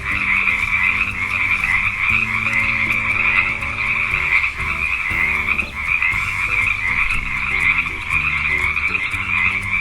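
Frogs croaking in a continuous, dense chorus, over a backing track with a steady bass line.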